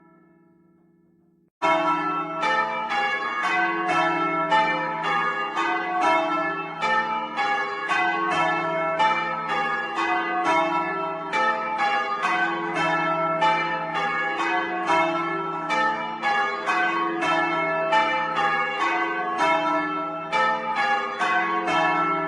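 Church bells change ringing, heard in the belfry: the heaviest ring of four bells hung for change ringing, striking one after another in an even, rapid run. A fading bell hum dies away first, and the ringing starts abruptly about one and a half seconds in.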